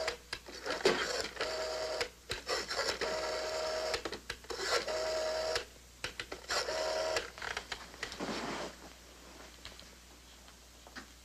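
Rotary telephone dial being turned and whirring back again and again as a number is dialed, each return a short buzzing whirr; it goes quiet about eight seconds in.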